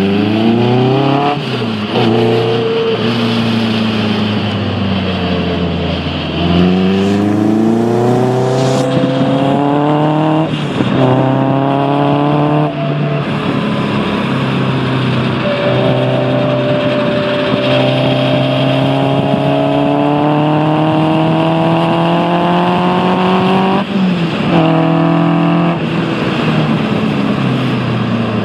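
Caterham R300's four-cylinder engine pulling hard through the gears, heard from the cockpit: the pitch climbs and drops sharply at each gearshift, about five times, and falls away under braking after about two seconds and again near the end.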